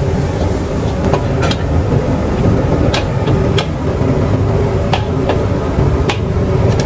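Stir-fried rice noodles cooking in a wok over a roaring gas burner: a steady low rumble with occasional sharp clinks of the spatula against the wok.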